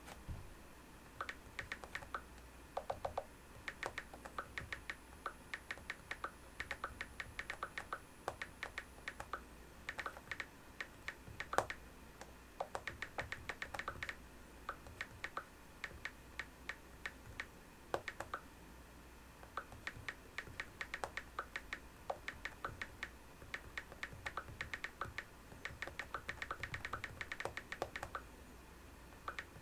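Typing for the iPad Pro 11-inch (2nd gen): a quick, steady run of keystroke clicks in bursts, with a few louder strokes among them.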